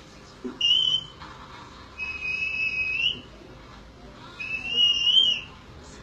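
Rose-ringed parakeet whistling three clear notes: a short one, then two longer ones about a second each, the second rising at its end and the third wavering up and down.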